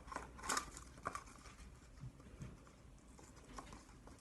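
Faint rustling and light clicks of cardboard toilet paper tubes and string being handled, mostly in the first second or so.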